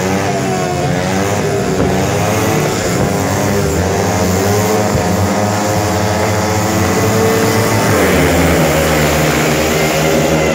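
Four speedway bikes' single-cylinder 500 cc engines revving hard at the start gate, pitch rising and falling. Late on they open up together and the sound swells as the riders leave the start.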